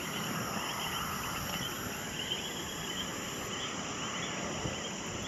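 Night insects such as crickets chirping steadily: high, short chirps repeating over a constant hiss.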